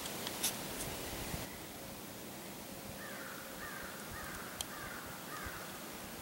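A bird calling five times in a quick series, each call short and falling in pitch, starting about halfway through, over quiet woodland hiss with a few faint clicks.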